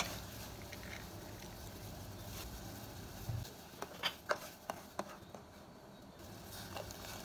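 Broth boiling in a steel pot as an egg is cracked into it. About three and a half seconds in, a metal ladle stirs the soup and clinks several times against the pot.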